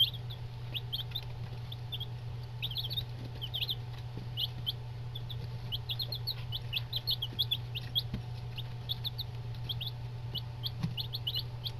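A brood of eight-day-old Buff Orpington and Barred Rock chicks peeping: many short, high chirps overlapping without pause, over a steady low hum.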